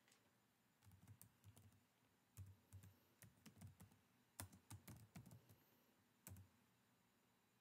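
Faint keystrokes on a computer keyboard, typing in irregular clusters of taps that stop about six seconds in.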